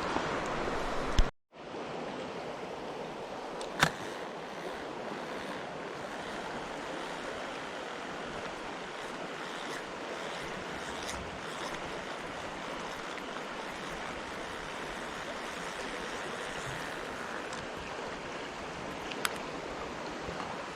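Mountain stream water rushing steadily over rocks, cut off to silence for a moment about a second in, with a sharp click about four seconds in and another near the end.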